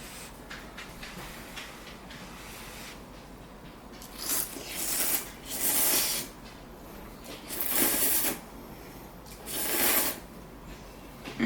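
A series of short, noisy slurps of instant ramen noodles, each under a second, coming in the second half, after a stretch of faint small clicks of eating utensils.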